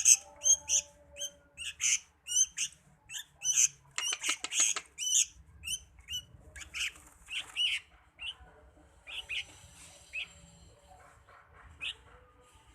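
Small pet songbird calling in short, sharp chirps, about two or three a second, with a brief rustling flurry around four seconds in. After that the chirps come more sparsely and fainter.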